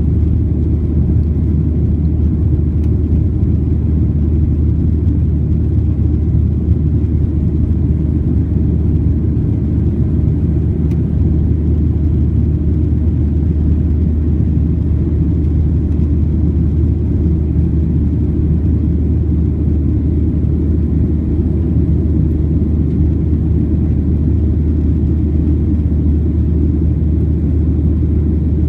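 Boeing 737-700 jet airliner: a steady low rumble with no change in pitch or loudness.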